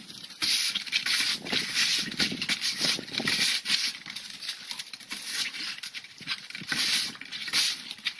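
Red push broom's bristles scraping across wooden deck boards in quick, uneven strokes. A small dog makes noises as it attacks the broom head.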